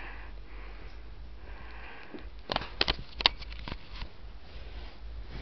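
Chihuahua puppy sniffing softly, with a quick cluster of sharp clicks about halfway through.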